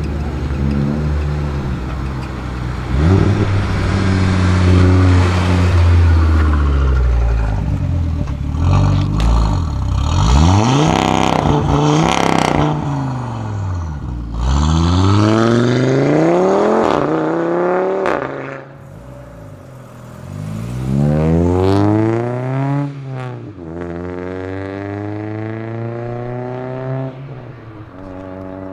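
Audi RS3 Sportback's turbocharged inline five-cylinder pulling away hard, its pitch climbing and dropping back again and again as it shifts up through the gears. In the second half a Honda Civic hatchback accelerates away, its four-cylinder rising in pitch through the gears.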